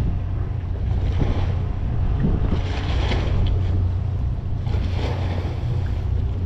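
Wind buffeting the microphone and water washing around a small boat, swelling and easing every couple of seconds, over a steady low hum.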